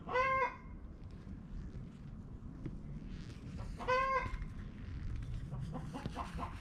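A chicken calls twice, each a short squawk about half a second long, some four seconds apart, followed near the end by softer, quick repeated clucks.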